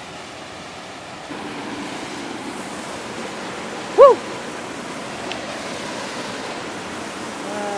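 Steady rush of a mountain waterfall, a little louder after about a second. About halfway through, a man gives one short, loud shout that rises and falls in pitch.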